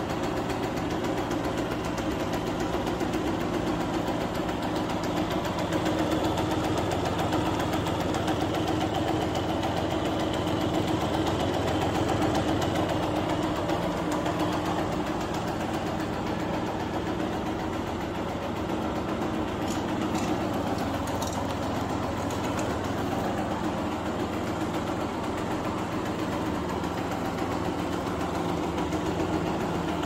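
Honda NSR two-stroke engine idling steadily, with no revving.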